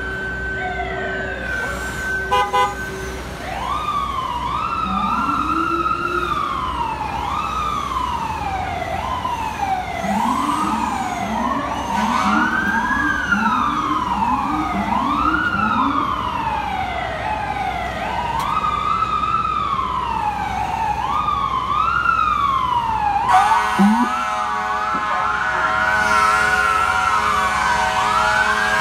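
Several emergency vehicle sirens wailing and yelping over one another in heavy traffic, with a deeper siren sweeping up again and again in the middle. A few short horn beeps come about two seconds in, and a long horn blast starts near the end and holds under the sirens.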